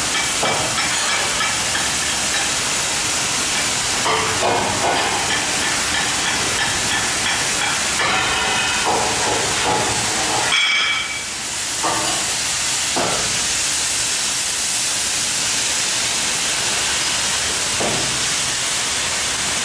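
Oxy-fuel cutting torches on a CNC gantry cutter, hissing steadily as they burn through steel plate. The hiss dips briefly about halfway through, then carries on.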